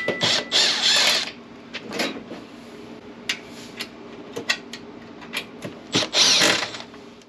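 Milwaukee cordless driver running in short bursts, two longer runs about half a second in and near the end and a brief one in between, with sharp clicks and knocks between the runs.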